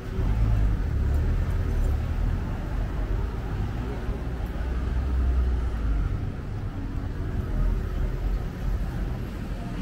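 Street traffic: a motor vehicle running nearby, heard as a low rumble that swells and eases.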